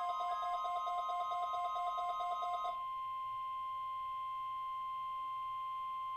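Emergency alert attention signal: a steady single tone near 1 kHz, the 1050 Hz warning alarm tone of NOAA Weather Radio, announcing a test tornado warning. Rapid electronic beeping at several pitches runs over it and stops about three seconds in, leaving the tone alone.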